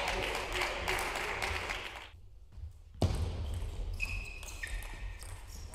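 Table tennis ball clicking off bats and table during play, with two short high squeaks about four seconds in. The sound drops out for about a second near the middle and comes back suddenly.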